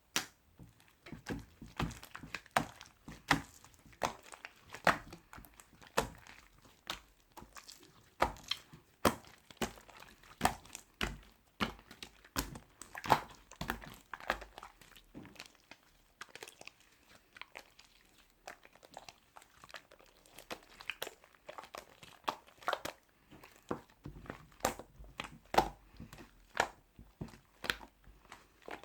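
Crinkling and rustling of something being handled, with many irregular sharp clicks and taps.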